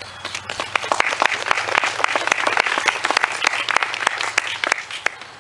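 Small audience applauding: many overlapping hand claps that build up in the first second and die away shortly before the end.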